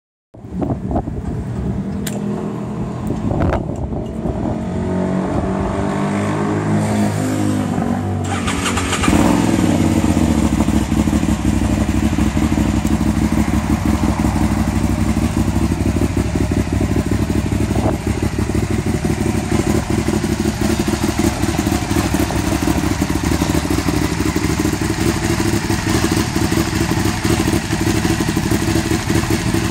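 Aprilia Shiver 750 V-twin with a LeoVince SBK aftermarket exhaust starting up and idling. The idle wanders unevenly for the first eight seconds or so, then settles into a steady, louder idle from about nine seconds in.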